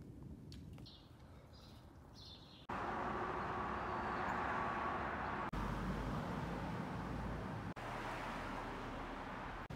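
Outdoor city ambience in short spliced clips: a few faint bird chirps at first, then a steady hiss of distant traffic. The background changes abruptly at each cut.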